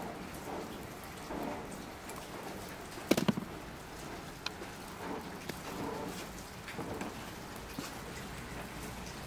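Screwdriver and screw clicking against the hard plastic under-seat storage tub of a scooter as the screw is backed out and taken out by hand. The loudest clatter comes about three seconds in, with a few lighter ticks after it, over a steady background hiss.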